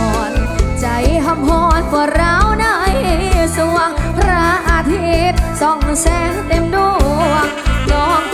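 Live band playing northeastern Thai (Isan) lam music, with a steady drum beat and a bending, ornamented melody line over it.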